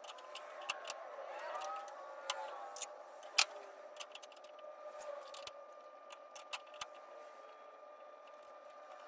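Steel dado-stack blades, chippers and shims clinking as they are fitted onto a table saw's arbor: a string of light metallic clicks and taps at irregular intervals, the sharpest about three and a half seconds in. A faint steady hum runs underneath.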